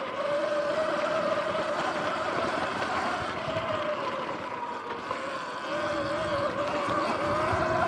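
Sur-Ron electric dirt bike's electric drive whining while riding, its pitch wavering up and down as the speed changes, over a steady rushing noise from the tyres on loose dirt.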